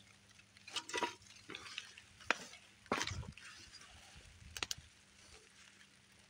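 Footsteps and rustling leaves from walking through brush: a handful of short, uneven crunches and crackles with faint hiss between them.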